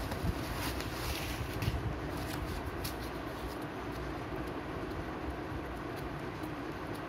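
Stacked flat-packed corrugated cardboard boxes being handled and riffled, with light rustling and scraping of cardboard, mostly in the first couple of seconds, over a steady low background rumble.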